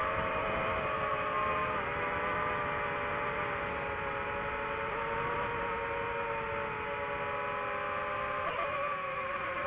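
DJI FPV quadcopter's motors and propellers whining steadily in flight, several close pitches holding level, with small shifts in pitch about two seconds in and again near the end.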